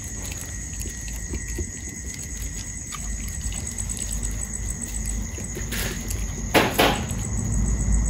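Puppies eating cooked rice from a metal pan: a run of small wet clicks from chewing and lapping, with two or three short, louder scuffs a little after the middle. A steady chirring of crickets runs underneath.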